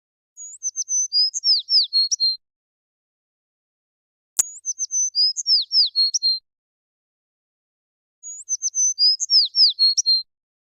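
A sparrow singing the same short song three times, about four seconds apart. Each song lasts about two seconds: a string of quick high notes and down-slurred notes ending in a short trill, with dead silence between the songs. A sharp click marks the start of the second song.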